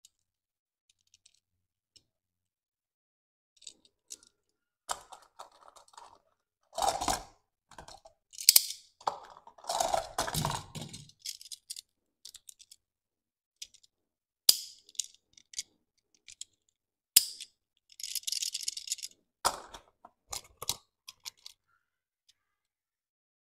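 Small handling sounds of a die-cast toy car and its cardboard box: scattered sharp clicks and taps with short rustles between, starting a few seconds in after near silence.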